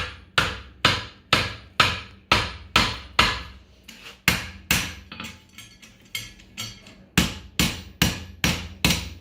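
Farrier's hand hammer striking a steel horseshoe on the anvil, shaping the branch of a hind shoe: about twenty ringing blows at a steady two or so a second, with a short pause midway.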